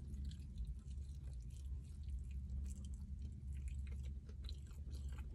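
Close-up chewing of crispy fried chicken wing, with many small crunchy crackles, over a steady low hum.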